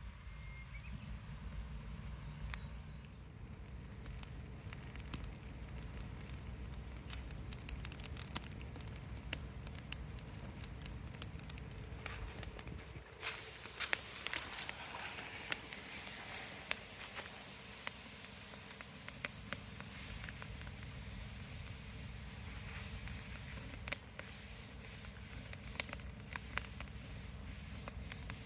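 Wood fire crackling with frequent sharp pops; about halfway through a louder steady hiss joins in.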